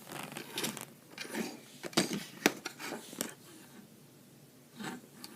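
Handling noises of small plastic cruise ship models: scattered rustles and scrapes with a few sharp clicks as they are picked up, moved and set down.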